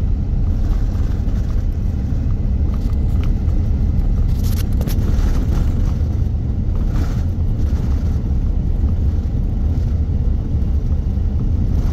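Steady low rumble inside a vehicle's cabin while driving on a gravel road: tyres on gravel and engine running at cruising speed, with a few faint brief clicks around the middle.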